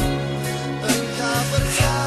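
Malay pop song playing: a band with a sustained bass line and drum hits, and a voice singing a lyric line.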